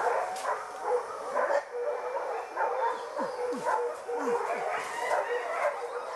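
Boar-hunting dogs barking and yelping, with many short calls coming quickly and overlapping.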